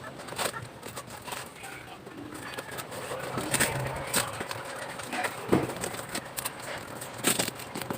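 Plastic wrapping and packing tape being pulled and torn open on a parcel, with irregular sharp crinkles and rips, the loudest about halfway through and near the end. Birds call in the background.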